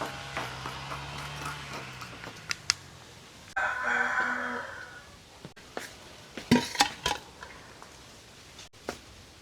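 A rooster crows once, about a second and a half long, a few seconds in. A few sharp clinks, like dishes or utensils, come a couple of seconds after it.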